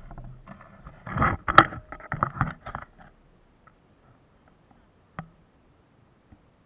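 Handling noise from a small camera being turned on its mount: close scraping and knocking for about three seconds, with one sharp click in the middle, then a single click a couple of seconds later.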